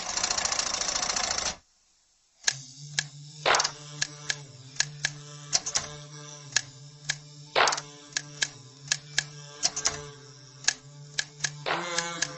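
Soundtrack music: a held low drone under sharp, uneven clicking percussion, with a short dense burst of sound at the start that cuts off after about a second and a half.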